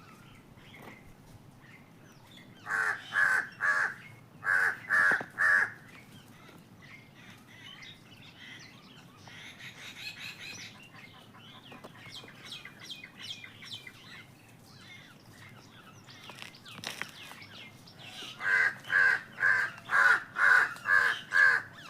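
Crows cawing: two quick series of three caws about three and five seconds in, faint chirping in between, then a longer run of about nine caws near the end.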